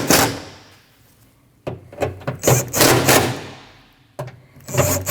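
A power tool, run in short bursts, tightening the T40 Torx screws that hold a liftgate latch. One run fades out at the very start, a second runs for about two seconds, and a third starts near the end.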